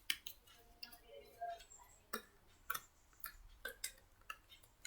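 Rubber examination gloves being pulled onto the hands: a faint series of light, irregular clicks and snaps.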